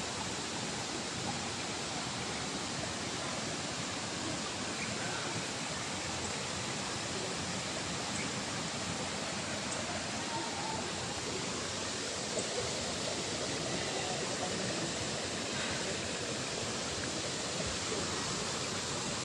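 Steady rush of flowing water, an even hiss that holds at one level throughout.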